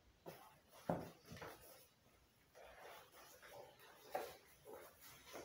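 Faint, scattered rustles and soft knocks of leather welding protection being put on and handled, with one sharper knock about a second in.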